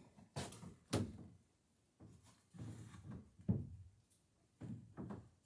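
Scattered wooden knocks and thuds from handling boards and tools against a wooden dory hull, the two sharpest about a second in and about three and a half seconds in, with softer taps between.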